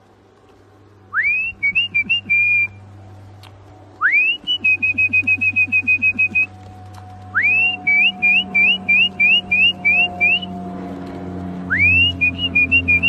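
A person whistling to a flock of racing pigeons, four times: each call is a quick rising whistle followed by a run of short, rapid notes. This is typical of a keeper calling the birds in to the loft. A low hum underneath grows louder near the end.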